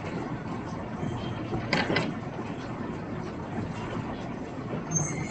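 Steady low background rumble, with a brief rustle or scrape about two seconds in.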